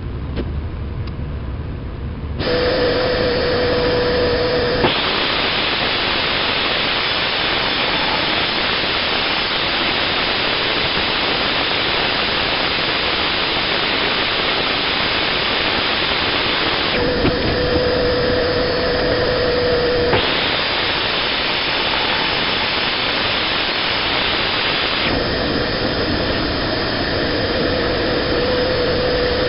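An electric power tool motor starts about two seconds in and runs with a steady whine, twice changing to a louder hissing rush for several seconds and then back to the plain whine.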